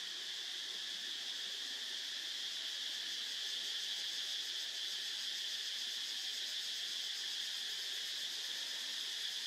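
Steady, high-pitched buzzing chorus of insects that keeps on without a break.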